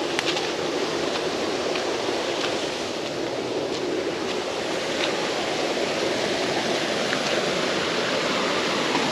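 Floodwater running along a field ditch, a steady rushing sound.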